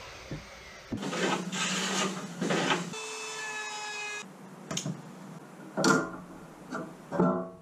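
Three rasping strokes of a hand tool working a piece of wood, then a short steady whine and a few sharp knocks of wood against the bench.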